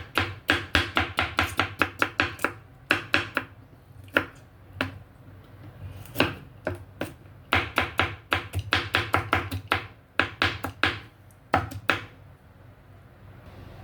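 Knife chopping fresh okra on a cutting board, about five quick strokes a second in runs with short pauses between; the okra is being chopped by hand rather than blended.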